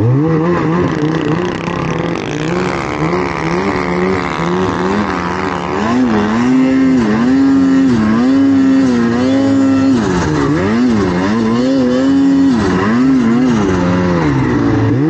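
Snowmobile engine working under throttle through deep powder, its pitch rising and falling again and again as the throttle is opened and eased.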